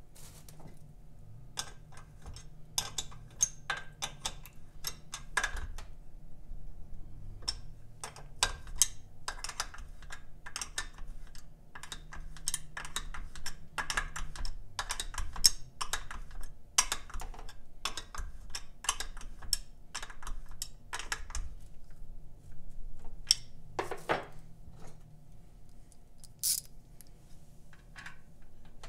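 Irregular small metallic clicks and taps of hands handling parts and threading a nut by hand onto the lower-unit mounting of an outboard motor.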